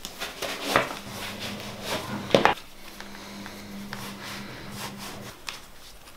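A Salomon trail-running shoe being pulled on and its quick-lace drawn tight: a few short rubbing swishes, the sharpest about two seconds in, with the shoe scuffing on a wooden floor. A faint steady low hum runs under the middle of it.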